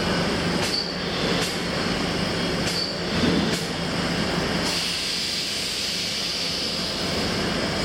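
Factory machinery running with a steady low hum and general clatter. There are a few sharp clicks in the first few seconds, and a steady high hiss starts about two-thirds of the way through.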